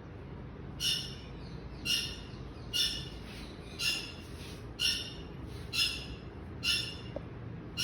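A bird calling repeatedly, a short, high, chirping call about once a second, seven times over a steady low background noise.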